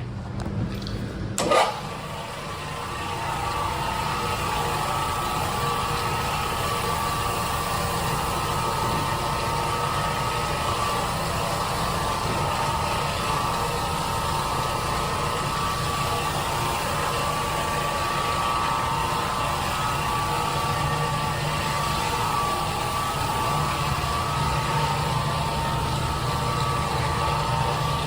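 A motorised floor-cleaning machine switched on about a second and a half in, then running steadily with a low hum and a steady mid-pitched whine.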